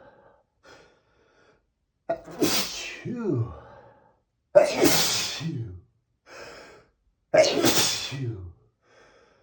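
A man sneezing three times, about two and a half seconds apart. Each sneeze is a sudden loud burst whose voiced tail falls in pitch. Faint short breaths come between them.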